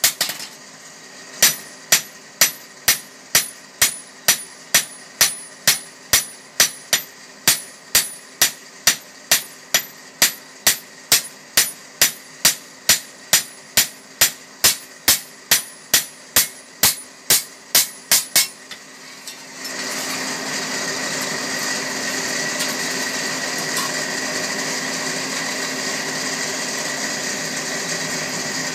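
Blacksmith's hammer beating the red-hot edge of a fodder-chopper blade, about two ringing metal strikes a second over the low hum of the furnace's electric blower. The hammering stops about 18 seconds in, and a loud steady machine whir takes over.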